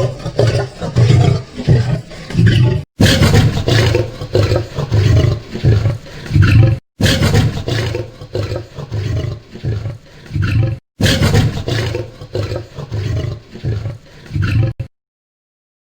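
A large wild animal roaring: loud, deep calls repeating about once or twice a second, broken by three short, sudden gaps and stopping about a second before the end.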